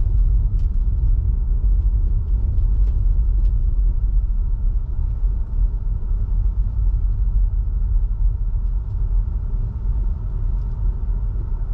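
Steady low rumble of a Tesla Model 3 driving on a snow-covered road: tyre and road noise from its all-season tyres, with no engine sound. A few faint clicks sound over it, and the rumble eases a little near the end as the car slows for a stop.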